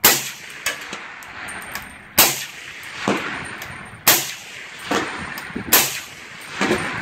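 Four rifle shots fired about two seconds apart. Most are followed under a second later by a fainter metallic clang from the distant steel target being hit.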